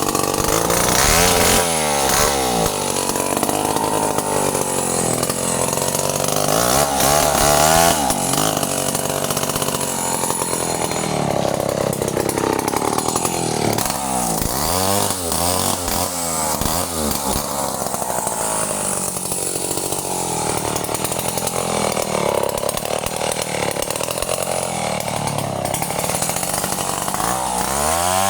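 Stihl chainsaw engine running, its pitch rising and falling again and again as it revs up and drops back.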